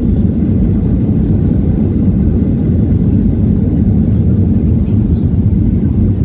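Steady low rumble of cabin noise inside a Boeing 737-800 with CFM56-7B engines, heard from a window seat over the wing as the jet rolls along the ground.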